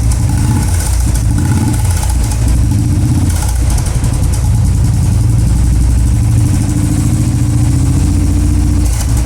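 Royal Enfield motorcycle engine running at idle through an aftermarket chrome Indori silencer, a steady low exhaust note.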